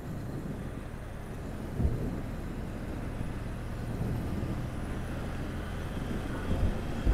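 Motorcycle running at a steady cruise while being ridden, its engine and the rush of the ride heard as a steady low rumble. There is a brief thump a little under two seconds in.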